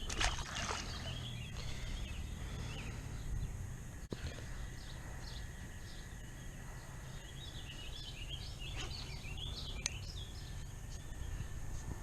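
Small birds singing in short chirping phrases, twice, over a steady low outdoor rumble, with a couple of faint clicks.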